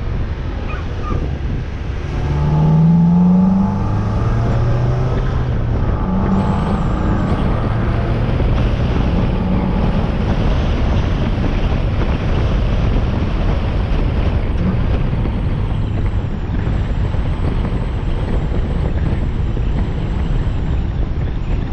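Mazda MX-5 NB's engine and K&N intake heard from the bonnet while driving. About two seconds in, the engine revs up under acceleration with a rising intake note, the loudest moment. It then runs on steadily under a constant rush of wind and road noise.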